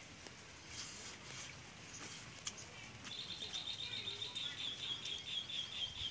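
A bird trilling: a rapid, even run of high chirps that starts about halfway through and keeps going, over quiet outdoor ambience with a few faint clicks.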